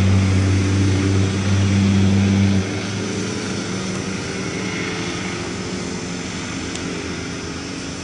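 A steady engine drone with a low hum, loud for the first two and a half seconds, then dropping sharply to a quieter hum.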